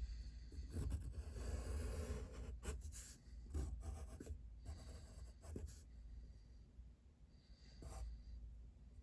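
A drawing tool scratching across paper in a run of quick strokes with sharp ticks of contact, then a quieter pause and one more stroke near the end.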